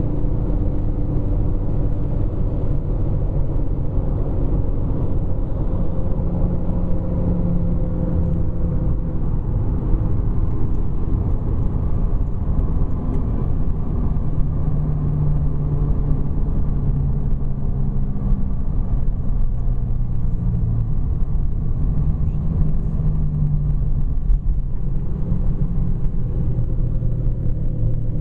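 Steady road noise inside a car's cabin while driving on a highway: a constant low rumble from the tyres and engine, with a low hum that drifts slightly in pitch.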